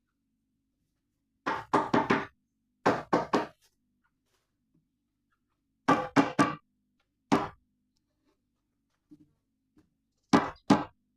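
Hammer blows in quick runs of three or four with pauses between, then a single blow and a final pair near the end.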